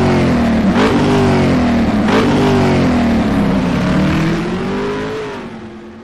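Car engine revving in several quick climbs and drops of pitch, then settling into a slower rise and fall before fading out near the end.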